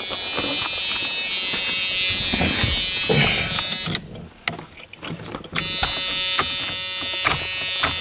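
Steady electrical buzzing from inside a 1995 Dodge Dakota's cab after its battery is reconnected following an ignition switch replacement. The buzz cuts out about halfway through, then resumes with a few light clicks.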